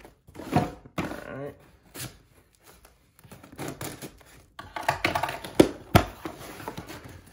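Scissors slitting packing tape along the seams of a cardboard shipping box, with the cardboard scraping and rustling under the hands. A couple of sharp knocks come near the end.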